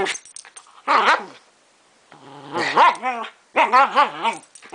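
Small terrier play-growling and barking: a short bark about a second in, then two longer growls whose pitch wavers up and down.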